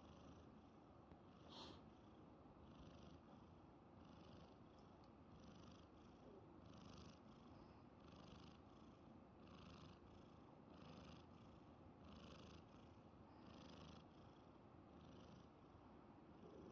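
A sleeping kitten with rhinitis snoring faintly through a stuffy nose, a soft wheezy snore on each breath about every second and a half. A single faint click sounds about a second and a half in.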